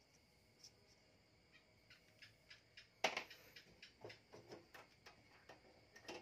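A marker making a few short faint strokes on a paper label, then a sharp knock about three seconds in followed by a run of light clicks and knocks as things are handled on a workbench.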